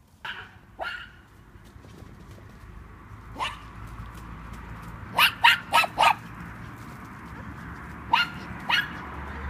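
A dog barking in short, sharp barks: two near the start, one about three and a half seconds in, a quick run of four around five to six seconds in, and two more near the end.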